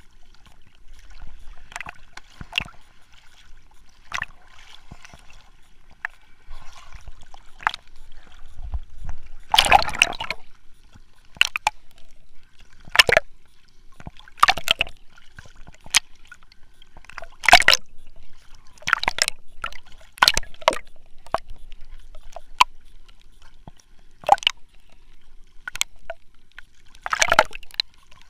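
Choppy sea water sloshing and slapping right at a camera held at the waterline, in irregular short splashes as small waves wash over it. The biggest splashes come about ten seconds in and again near the end.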